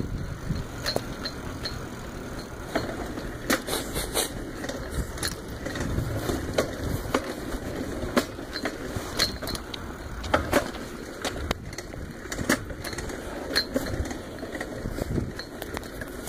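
Bicycle being ridden along a concrete sidewalk: a steady low rumble from the tyres, with irregular clicks and rattles as the bike jolts over the pavement.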